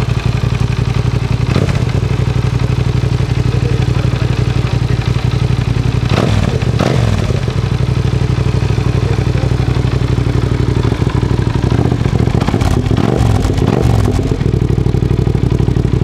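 Yamaha TDM 900's parallel-twin engine running through a Race Guns aftermarket silencer, idling steadily. Its note wavers briefly about six seconds in and again around thirteen seconds in.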